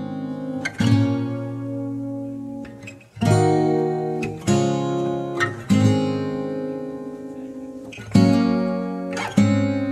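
Background music: an acoustic guitar strumming chords that ring out between strums.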